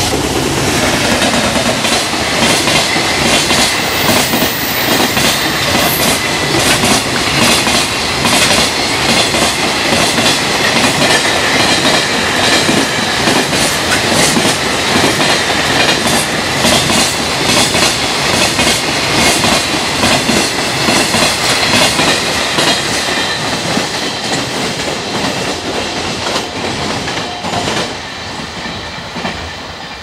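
A long container freight train passing at speed over rail joints: a fast, rhythmic clickety-clack of the wagons' wheels striking the joints, with a steady high tone over it for the first two-thirds. It fades over the last few seconds as the end of the train goes by.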